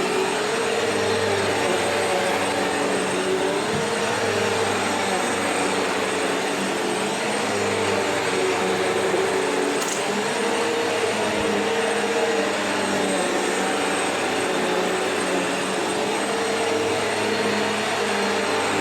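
Vacuum cleaner running steadily over old, worn carpet, with a crunchy sound of debris being picked up. Its motor hum wavers slightly in pitch every few seconds, and there is one brief click about halfway through.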